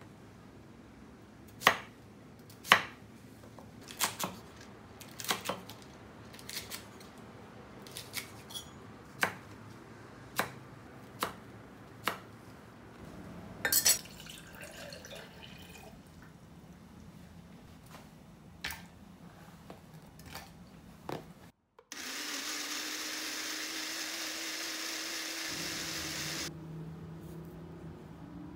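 Kitchen knife chopping on a wooden cutting board, about a dozen sharp strikes spread over the first twelve seconds, then water poured into a glass blender jug. About three quarters of the way in, a Tefal countertop blender runs steadily with a whirring hum for about four seconds and stops.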